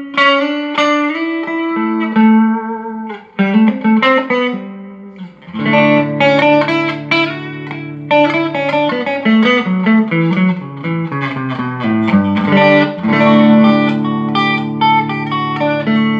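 Electric guitar played through a Mesa/Boogie Studio .22+ tube combo amp: held chords and picked single notes. This is a play test after repair of a fault that made the amp's sound cut out at random.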